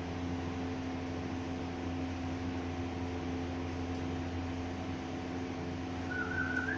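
Steady machine hum and hiss, like a fan or appliance running, with a short high wavering whine near the end.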